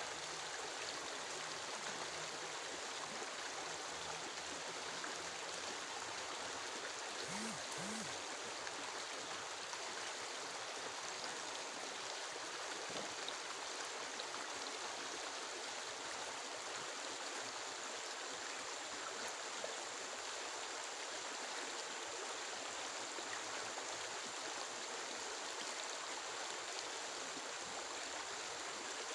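Steady rushing of water, an even hiss that holds at one level throughout.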